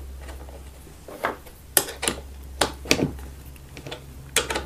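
A handful of light, scattered metallic clicks and taps as a bearing bolt is fitted and tightened with a hex key on an aluminium angle.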